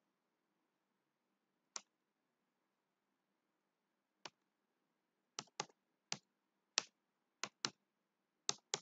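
Computer keyboard keystrokes as a short word is typed: about ten separate sharp clicks, two spaced well apart at first, then coming quicker in the second half.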